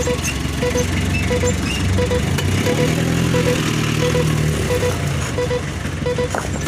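A truck's diesel engine runs steadily while its reversing alarm sounds short double beeps, a pair about every 0.7 seconds. The engine note rises briefly partway through.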